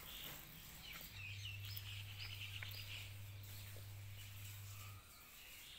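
Faint birds chirping over quiet outdoor background, with a low steady hum that cuts off about five seconds in.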